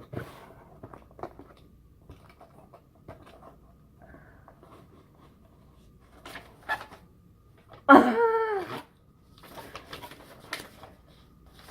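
A box and its packaging being handled and opened: scattered light rustles and taps. About eight seconds in comes a brief excited vocal exclamation, the loudest sound.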